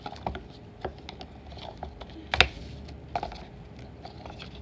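Irregular light clicks and taps from hands handling a cardboard album box and its bubble-wrap packing, with one louder sharp knock about halfway through.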